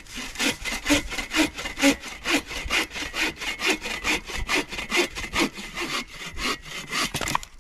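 Hand saw cutting through wood in steady back-and-forth strokes, about two a second, stopping shortly before the end.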